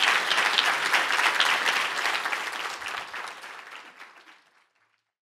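Audience applauding, a dense patter of many hands clapping, fading away over the last few seconds.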